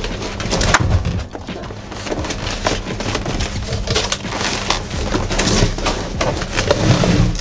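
Cardboard box and packaging rustling, crackling and knocking as they are pulled open and unpacked, over background music.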